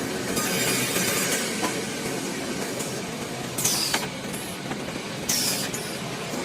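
Woodworking sawing machine running with a steady mechanical rumble, with three short bursts of high hiss as it cuts: one early, one near four seconds and one just past five. The later two have a falling whine.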